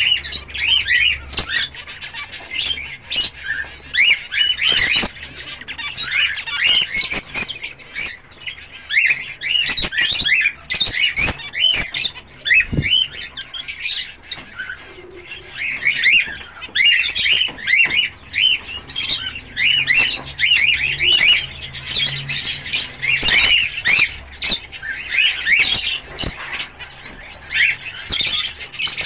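A flock of zebra finches calling continuously: many short, nasal chirps overlapping one another. A few sharp clicks and a louder knock about halfway through are mixed in.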